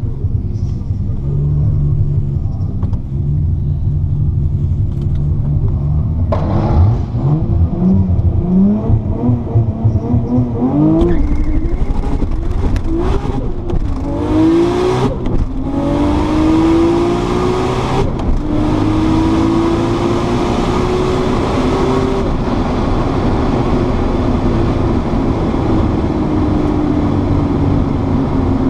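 Single-turbo RB26 straight-six of a 1993 Nissan Skyline R32 GT-R heard from inside the cabin on a drag run: it idles, revs up in several short rises, then launches and pulls hard through the gears, the pitch climbing in each gear and dropping at each shift. About three quarters of the way through the driver lifts off and the engine winds down.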